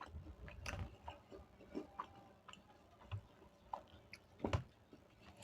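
Close-up chewing and mouth sounds of a person eating rice with dal and potato bhujia: soft, wet chewing with irregular small clicks and smacks, and one sharper click a little after four and a half seconds.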